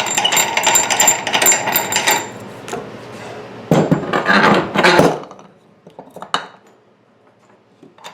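Metal tire spoons clinking and scraping against the wheel rim while prying a lawn tractor tire bead, with a second, louder scraping spell about four seconds in and a single click after it.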